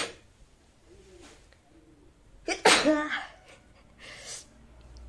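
A woman sneezing: the end of one sneeze at the very start, then one loud sneeze with a voiced tail about two and a half seconds in, followed by a quieter breath about four seconds in.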